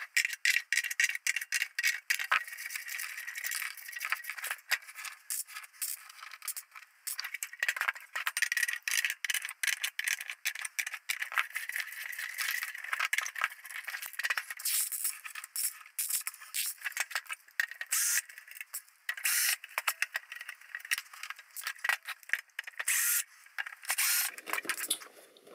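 Rapid, irregular rattling, clicking and scraping of a rack-mount audio interface's metal case and its small screws being handled as the case is taken apart.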